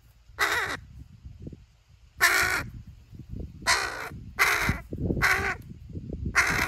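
Hooded crow cawing: six short, harsh caws, irregularly spaced.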